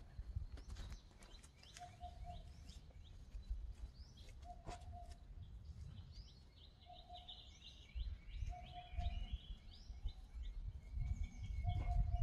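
Small birds chirping, with a short low call repeating about every two seconds, over a low rumble of wind on the microphone.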